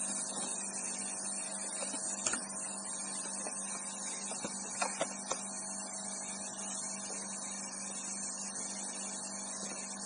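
Refrigeration vacuum pump running steadily with a hum and hiss while evacuating an air conditioner's lines; the owner says the pump is long overdue for oil and lacks power. A few faint clicks come at about two and five seconds in.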